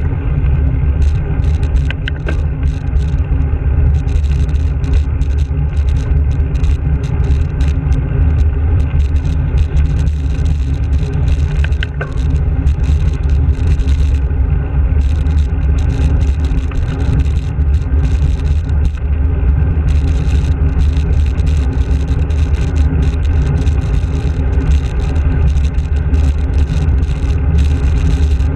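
Steady low rumble of wind and road vibration on a bicycle-mounted GoPro Hero camera as the bike rides along a road, with motor traffic passing close alongside.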